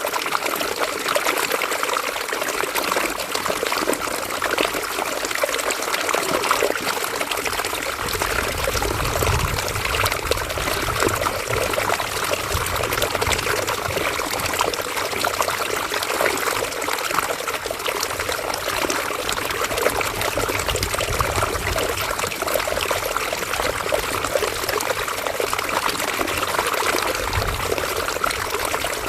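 River water flowing steadily, a continuous trickling rush. A low rumble joins about eight seconds in and carries on beneath it.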